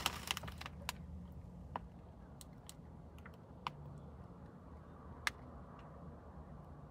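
Faint scattered crinkles and ticks from a plastic chip bag held up in one hand, a few isolated ones with the loudest a little over five seconds in, over a low steady hum.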